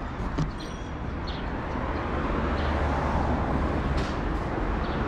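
Steady outdoor rumble and hiss, growing a little louder about two seconds in, with a few faint high ticks.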